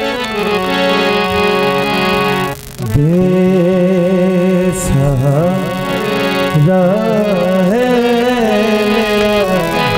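Live Urdu devotional song: a male singer holds a long, wavering, ornamented melody over sustained keyboard accompaniment. The opening couple of seconds are accompaniment alone, and the voice comes in about three seconds in.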